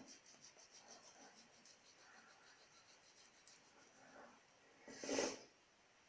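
Faint rubbing of a cotton pad across the skin of the face, with one short, loud puff of breath about five seconds in.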